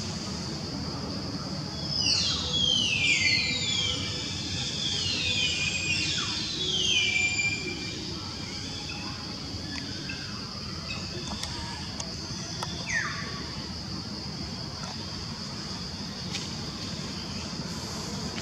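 Outdoor forest ambience: a steady high-pitched drone, with a run of overlapping descending squealing calls about two to seven seconds in and another single falling call near thirteen seconds, over a low background rumble.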